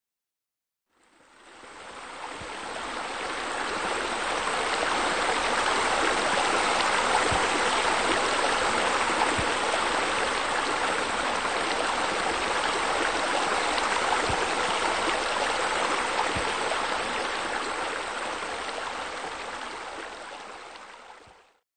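Running water: a steady rushing flow like a stream or spillway, fading in about a second in and fading out near the end.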